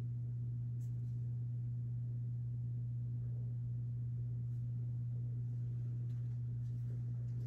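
Steady low electrical hum, one constant low tone with a fainter one above it, over quiet room tone, with a few faint soft rustles.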